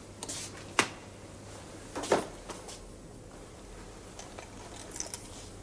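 Small objects being handled and set down on a hard surface: a sharp click about a second in, a louder knock about two seconds in, then lighter clicks and rustles, over a faint steady hum.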